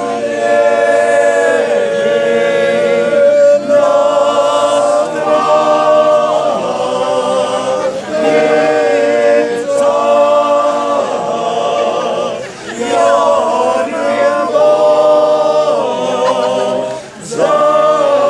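A small group of men singing a cappella in harmony, in phrases of long held chords that move in steps, with brief breaths about twelve and seventeen seconds in.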